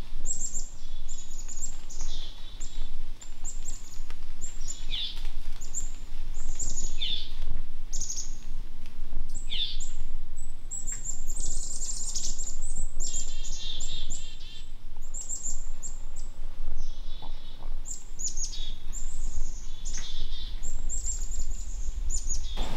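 Forest birds chirping and singing: a steady stream of short high chirps and downward-sliding whistles, with a few trills.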